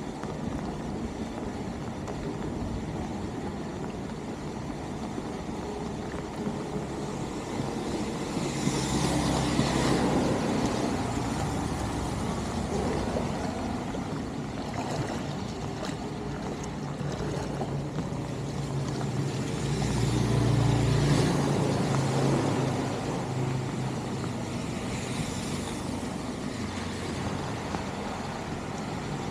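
Vehicles passing twice on a wet, flooded road, their tyres swishing through the water: one a third of the way in and another about two-thirds through, each rising and fading. Underneath is a steady hiss of rain and running water.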